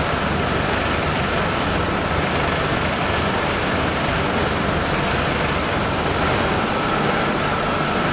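Steady machinery noise in a tyre pyrolysis plant: an even rushing din with a constant high whine.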